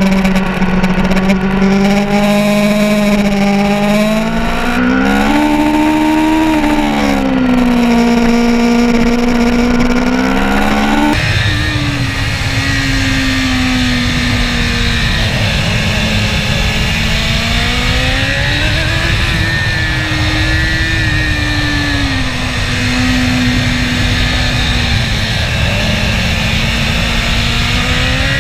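Sport motorcycle engine running under way, its pitch rising and falling smoothly as the throttle opens and closes through the bends. There is an abrupt change about eleven seconds in, after which a heavier low wind rumble sits under the engine.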